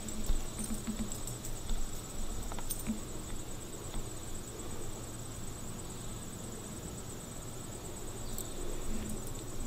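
Steady high-pitched trilling of insects in the grass, with a few soft low bumps in the first two seconds.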